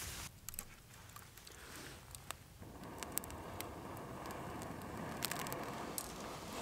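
Wood campfire crackling, with scattered sharp pops and snaps, as a branch is laid onto the glowing embers. A steady rushing hiss of the fire comes up about two and a half seconds in.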